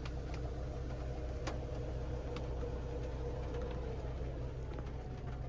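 Power liftgate motor of a 2022 Toyota RAV4 whirring steadily as the liftgate closes, its pitch sagging slightly near the end.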